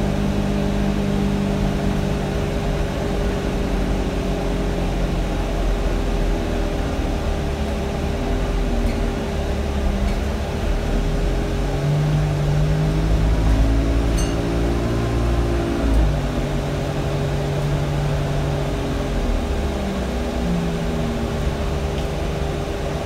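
Alexander Dennis Enviro200 bus heard from inside the rear saloon while under way: the diesel engine drones, its pitch rising and dropping several times as it pulls away and changes speed, over a steady whine from the engine cooling fan.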